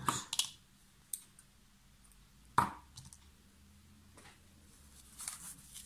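Scissors snipping the sewing thread just at the start, a single sharp knock about two and a half seconds in, then soft rustling of the stuffed sock fabric being handled near the end.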